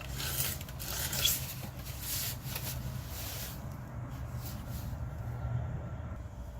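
Irregular scraping and rubbing of hand work on a car's rear brake assembly, mostly in the first three and a half seconds, over a steady low hum.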